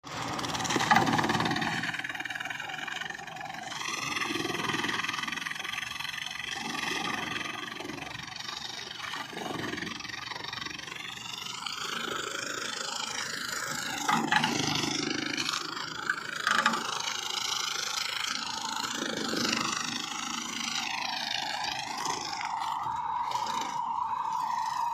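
Kubota MU5501 tractor's diesel engine running steadily, its pitch wavering up and down as it works, with a few brief sharper noises.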